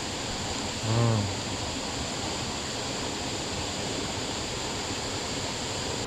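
Steady rush of a waterfall's falling water, with one short vocal sound from a person about a second in.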